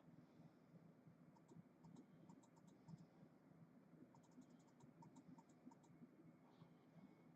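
Near silence: low room hum with faint quick clicks in two runs, one about a second and a half in and another from about four to six seconds in.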